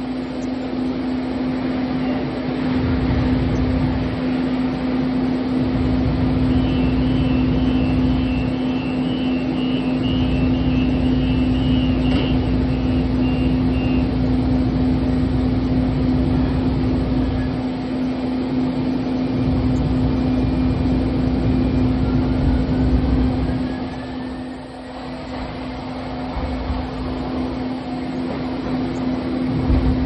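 Siemens S200 light rail vehicle running: a low rumble from the wheels on the rails that drops away briefly several times, over a steady low hum. A run of short, evenly repeated high beeps lasts several seconds early on, and a faint rising whine comes in near the end.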